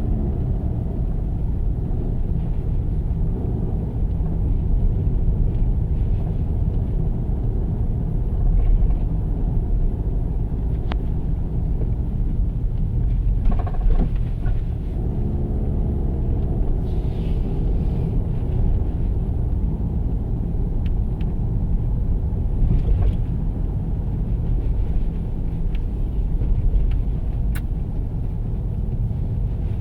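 Steady low rumble of a car driving, engine and road noise heard from inside the cabin. An engine note rises and falls briefly about halfway through.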